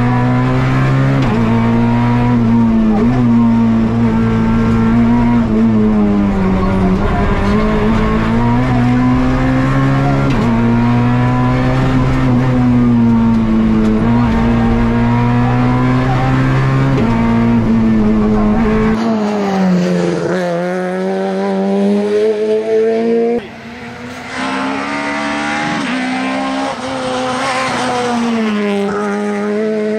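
Peugeot 208 R2 rally car's four-cylinder engine running at high revs. The pitch holds, dips briefly at each gear change and climbs again, heard from inside the cockpit. About two thirds through, the sound switches to the car heard from the roadside as it drives past.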